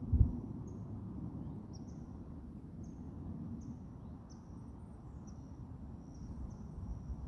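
A series of short high chirps, each with a slight downward flick, repeating about once a second and coming a little faster near the end, over a steady low rumble. A brief low thump sounds just after the start.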